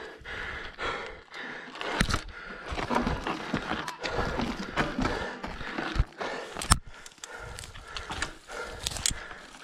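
Mountain bike ridden over rough, stony trail, its frame and parts rattling with irregular sharp knocks over a rushing noise.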